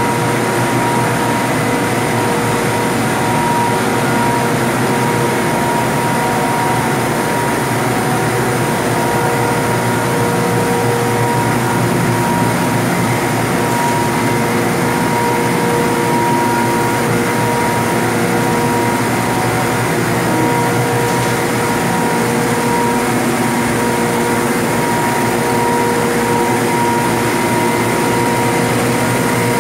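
HGR Combat MB40 plastic-film extruder line with its perforated bag-roll winders running: a steady, loud industrial hum with several steady whining tones over it, unchanging throughout.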